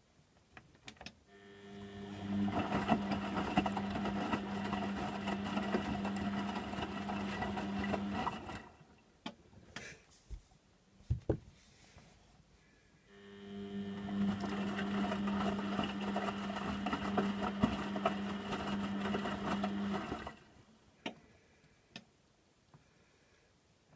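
Beko washing machine tumbling its drum on a Cottons 60°C wash: the motor runs for about seven seconds with a steady hum, stops for about five seconds, then runs again for about seven seconds, the usual turn-and-pause wash action. A few faint clicks fall in the pauses.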